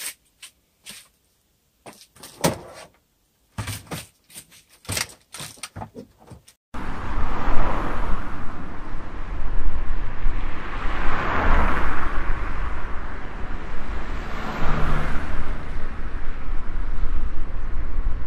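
Clicks and rustling of a deflated air mattress being handled. Then, about a third of the way in, a hair dryer switches on and runs steadily, blowing hot air into the mattress's valve with a loud, rumbling rush.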